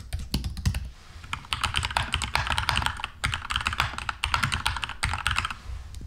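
Rapid, continuous typing on an Apple Magic Keyboard, its low-profile keys clicking in a dense stream.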